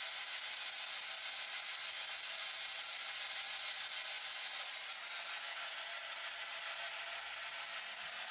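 Steady, even static hiss with no distinct knocks or voices.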